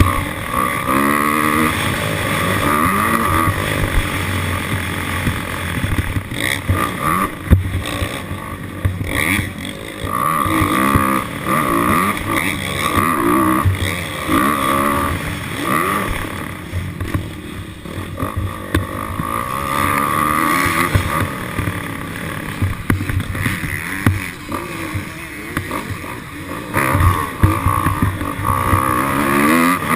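Dirt bike engine revving up and down over and over, its pitch climbing and dropping as the rider works the throttle and gears.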